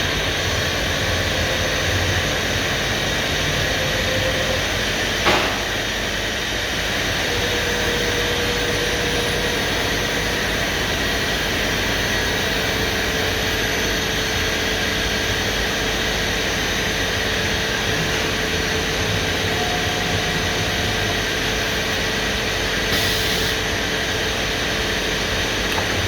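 4-axis CNC router running: a steady machine noise with a faint tone that shifts in pitch now and then, and a single sharp click about five seconds in.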